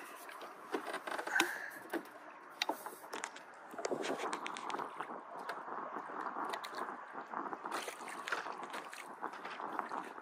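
Small waves lapping and slapping against the hull and pontoons of a mini pontoon boat as it rocks at rest, with many little splashes and knocks against the bottom.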